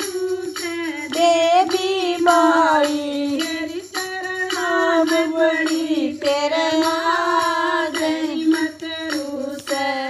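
Haryanvi devotional bhajan to the Mother Goddess: a voice singing a drawn-out, bending melody over a steady percussion beat.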